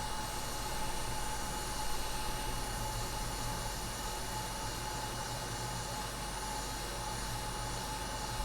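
Quick hot air rework station blowing steadily at high airflow: an even hiss with a faint constant whine, reflowing the CPU onto the iPhone 8 logic board.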